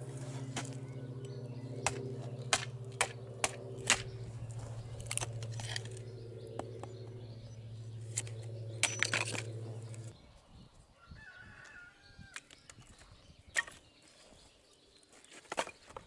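Hatchet chopping a stick of kindling held upright in a concrete block: a run of sharp cracks, loudest from about two to four seconds in, with more near nine seconds. Under it runs a steady low hum that stops abruptly about ten seconds in.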